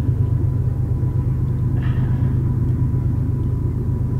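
A steady low rumble with a brief rustle about two seconds in.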